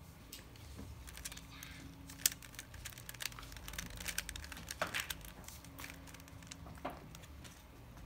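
Plastic 3x3 Rubik's cube being twisted by hand: a run of light clicks and rattles as its layers turn, with a few louder clacks about two, five and seven seconds in.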